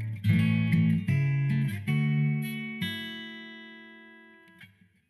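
Background music: a plucked acoustic guitar playing a few notes that ring on and slowly fade out, dying away almost completely near the end.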